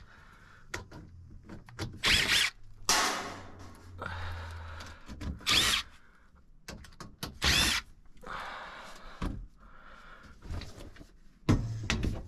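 Cordless drill driving out the quarter-inch hex screws of an air handler's sheet-metal access panel in several short spins, with clunks of the metal panel.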